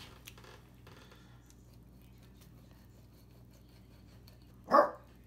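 Fillet knife scratching and scraping as it cuts into a whole brown trout on a plastic cutting board, making the first cut behind the gills. One short, loud yelp near the end.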